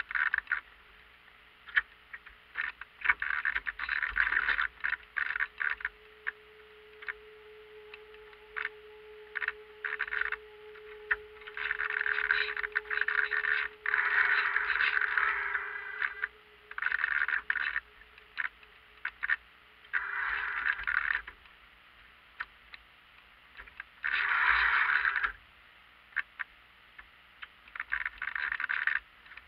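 Small waves slapping and gurgling against the hull of a radio-controlled Marblehead yacht, in irregular splashy bursts with short lulls between them. A faint steady hum runs underneath through much of it.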